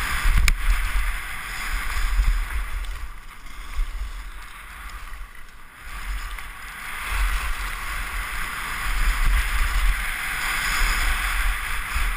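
Fischer skis hissing and scraping over groomed snow at speed, with wind buffeting the action camera's microphone as a low rumble. The noise drops off for a few seconds in the middle, then builds again.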